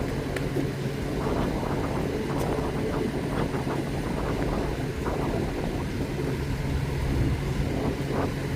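Steady low hum of vehicle traffic, even in level, with no siren rising or falling.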